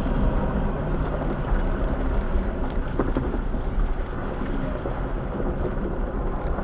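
Jeep Gladiator Rubicon driving: a steady low rumble of engine and tyres heard from inside the cab, with a single knock about three seconds in.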